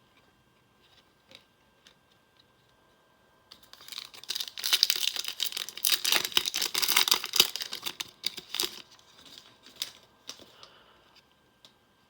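Trading-card pack wrapper crinkling and tearing for about five seconds, in the middle, with a few light ticks of cards being handled before and after.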